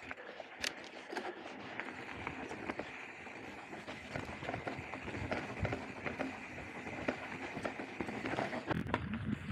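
Mountain bike rolling over a rough gravel singletrail: steady tyre crunch with many irregular clicks and rattles.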